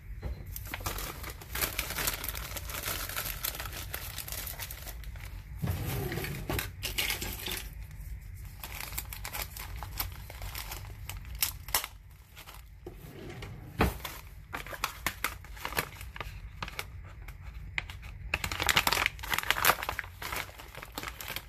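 Plastic packaging bag crinkling and rustling as it is handled, on and off with many small crackles, loudest near the end.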